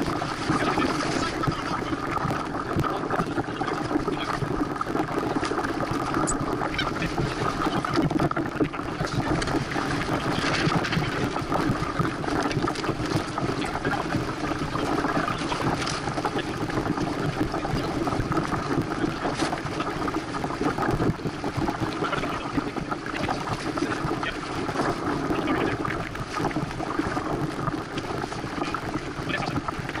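Steady rush of wind and water aboard a Santana 525 sailboat under sail, with a few light knocks scattered through.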